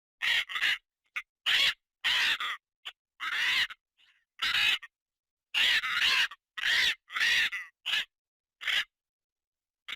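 A bird's harsh, raspy screeching calls, about fifteen short calls in quick irregular succession with dead-silent gaps between them.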